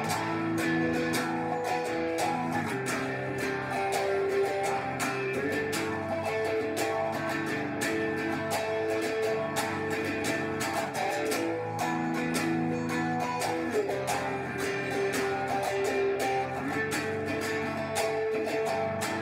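Guitar being strummed and picked, playing a chord progression with the chords changing every second or two.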